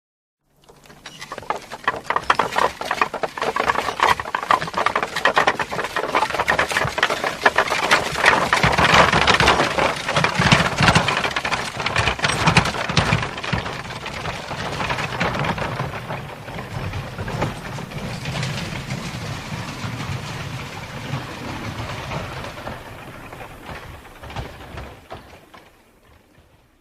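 Horse and cart going by: a dense, rapid clatter that fades in, is loudest about ten seconds in, then slowly fades away.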